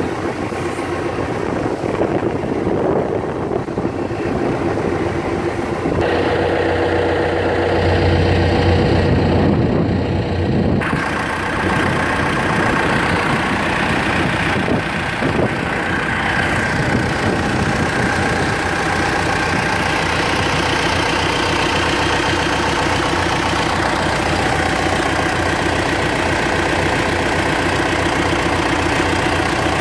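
John Deere 120C excavator's diesel engine idling steadily, heard close up with the engine compartment open. The sound changes abruptly about six seconds in and again about eleven seconds in.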